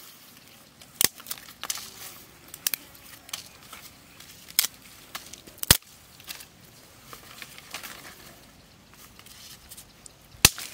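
Dry sticks and twigs snapping and knocking as they are handled and broken by hand: several sharp cracks, the loudest a little past halfway and near the end, with softer rustling and clicking between.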